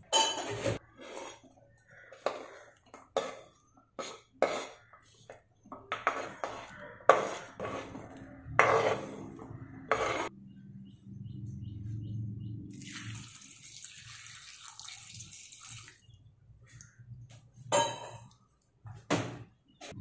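Diced beetroot being scraped off a wooden chopping board into an aluminium pot, a string of knocks and clatters as the board hits the rim and the pieces drop in. About halfway through, water is poured into the pot with a steady splashing hiss for several seconds, and two more knocks follow near the end.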